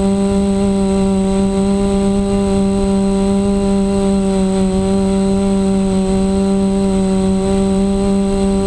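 Reptile Aphid 450 quadcopter's DJI 920KV brushless motors and propellers humming steadily at cruising throttle, heard from the camera on board, with a slight dip in pitch midway and a low rumble underneath.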